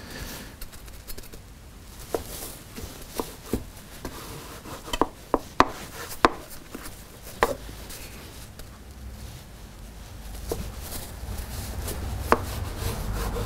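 A kitchen knife cuts a slab of set marshmallow into strips on a plastic cutting board. The blade knocks sharply on the board about ten times at irregular intervals, with a quick cluster about five to six seconds in.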